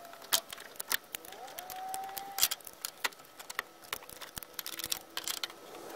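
Scattered sharp clicks and clinks of locking pliers and hands working the brake fluid reservoir's hose clamp loose, plus a brief tone that rises and then holds about two seconds in.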